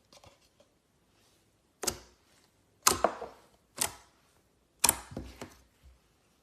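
Slime being pressed and worked by hand, giving four sharp popping clicks about a second apart, each trailing into a short crackle.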